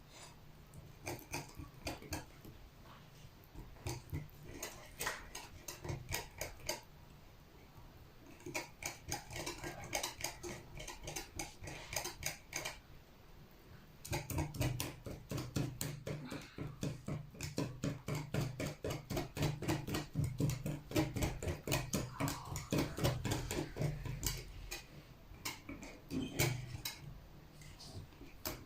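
Thick cake batter being stirred by hand in a bowl as flour is worked in: quick, repeated wet, squelching strokes with clicks of the utensil against the bowl. After a short pause about halfway through, the stirring comes back faster and louder.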